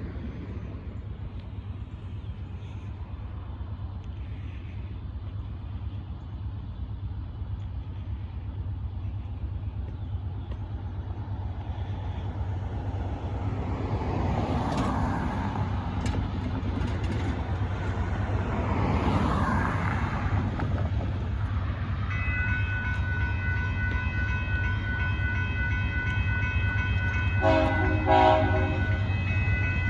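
A Union Pacific freight train's diesel locomotives approaching, a low rumble that grows louder. About two-thirds of the way in, a steady high ringing starts, typical of the grade-crossing bell. Near the end the locomotive horn sounds a few short notes.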